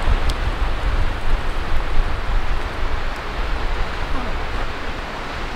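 Snowstorm wind blowing in gusts, with a heavy low rumble of wind buffeting the microphone.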